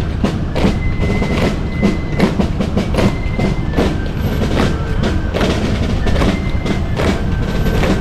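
Percussive march music with a steady drum beat, mixed with many sharp knocks from the stamping boots and rifle drill of marching palace guards.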